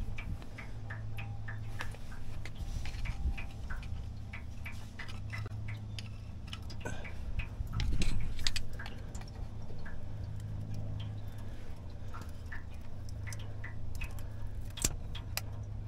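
Irregular light ticks and scrapes of old water pump gasket being worked off the mating surface of a GM LS engine block, with a louder knock about eight seconds in, over a steady low hum.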